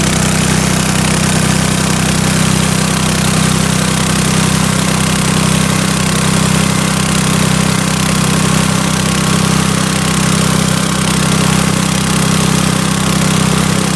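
Small gasoline engine running steadily, driving a diaphragm roof pump that is under pressure.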